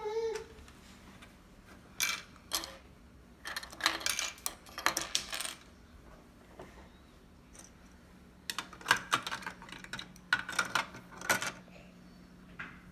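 Small plastic Lego pieces clicking and clattering as they are handled, in several short bursts of light taps with quiet gaps between.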